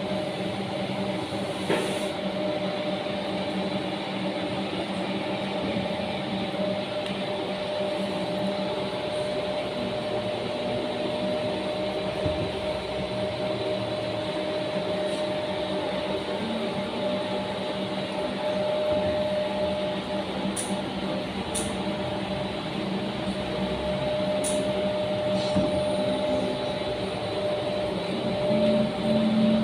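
Large-format indoor banner printer running: a steady mechanical whirr with a constant humming tone, and a few short faint clicks about two-thirds through.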